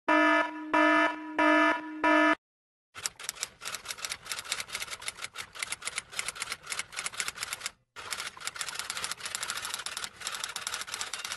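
Four short electronic beeps, evenly spaced about two-thirds of a second apart, followed by a long run of rapid typing clicks with a brief pause about two-thirds of the way through.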